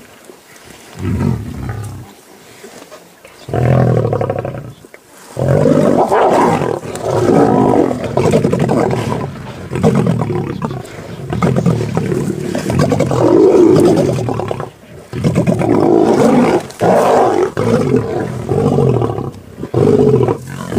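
Lions growling over a kill while feeding together, a loud run of rough, low growls that starts with short bursts and then runs on almost without a break.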